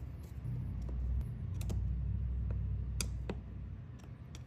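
A hand screwdriver driving the cover screws into a rebuilt chainsaw carburetor: a scattering of small, sharp metal clicks over a low rumble.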